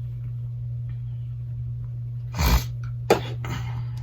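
Steady low electrical hum, broken by a short rustling scrape about two and a half seconds in and a sharp click just after three seconds, from a phone and tools being handled on a repair bench.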